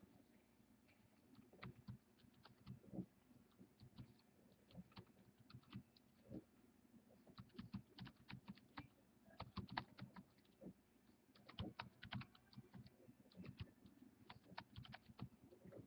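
Faint, irregular tapping and clicking of a computer keyboard.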